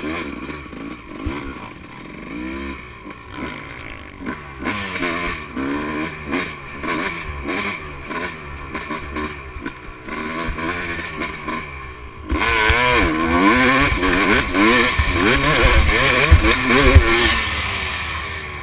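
Dirt bike engine heard from the rider's helmet, its revs rising and falling again and again as the throttle is worked and the bike shifts. About twelve seconds in it becomes clearly louder as the bike accelerates hard.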